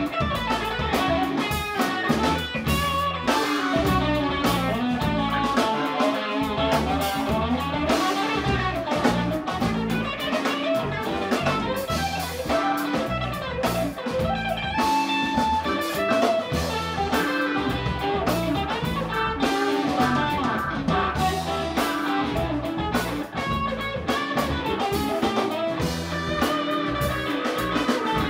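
Live band playing a bluesy rock number: electric guitars over electric bass, a drum kit and keyboard.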